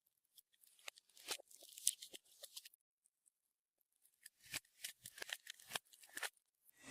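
Clear slime being squished and worked by hand, making quick crackling pops and clicks in two bursts, with a pause of about a second and a half in the middle.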